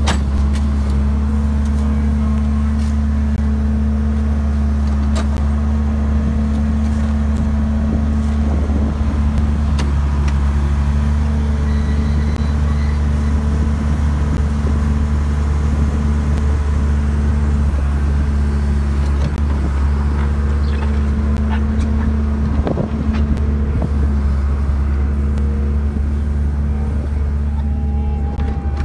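An engine running steadily at a constant speed, a loud low hum.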